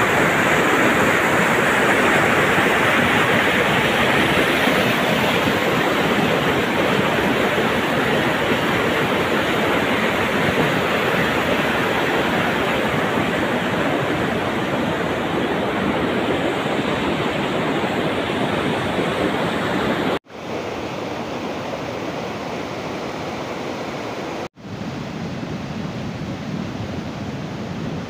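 Steady rushing of muddy flash-flood water carrying debris. Two very brief dropouts come near the end, and after the first one the rushing is a little quieter.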